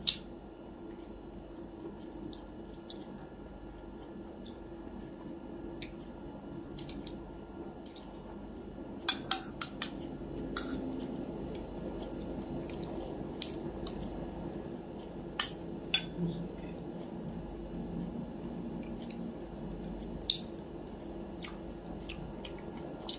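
Cutlery clinking and scraping on a ceramic plate while eating, with scattered sharp clinks, a quick cluster about nine seconds in, and soft chewing between.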